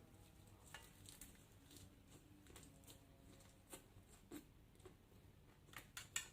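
Faint chewing: scattered soft clicks and crunches of food being eaten, coming more often near the end.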